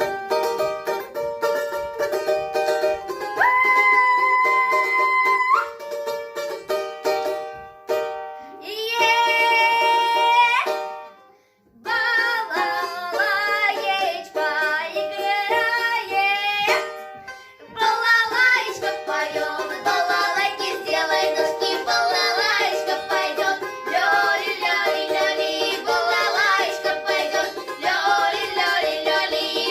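A duet: music with a plucked-string accompaniment, steady instrumental notes at first, then, after a brief break about twelve seconds in, voices singing over it.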